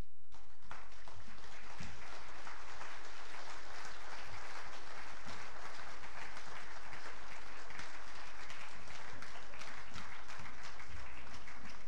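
A congregation applauding: many hands clapping together in a dense, steady patter that starts just after the beginning and keeps up without a break.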